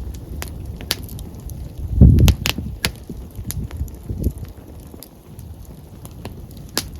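Open wood campfire crackling, with sharp pops at irregular moments. A low rush, typical of wind on the microphone, swells briefly about two seconds in and is the loudest thing heard.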